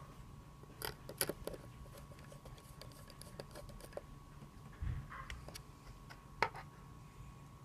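Scattered light clicks and taps of computer parts being handled, with a dull thump about five seconds in and a sharp click shortly after, over a faint steady hum.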